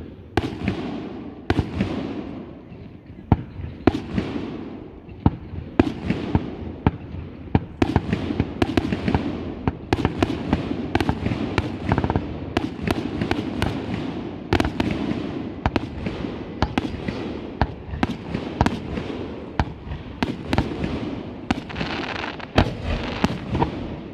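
Fireworks shells bursting in rapid succession: a string of sharp bangs, about two a second, over a constant rumble and crackle.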